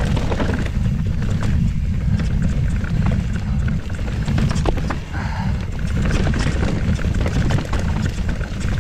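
Mountain bike riding down a rocky trail: a steady low rumble of wind and tyres on the moving camera's microphone, with scattered clicks and rattles from the bike over the rocks.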